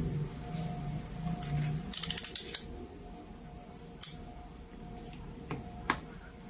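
Clicks from an analog multimeter and its test probes being handled: a quick run of clicks about two seconds in, then single sharp clicks about four seconds in and twice near the end.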